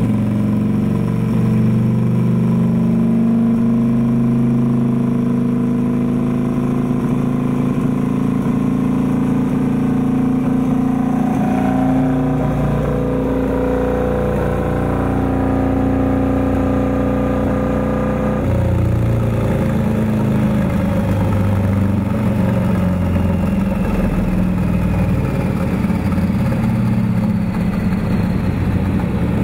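Turbocharged 2006 Harley-Davidson Screamin' Eagle V-Rod V-twin running under load on a chassis dyno. It is held at steady engine speeds, the pitch stepping between levels, and about 18 seconds in it drops to a lower note.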